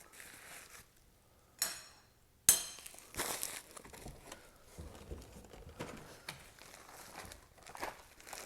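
Packing materials being handled: crinkling and rustling of wrapping and cardboard with small knocks, and one sharp knock about two and a half seconds in, the loudest sound.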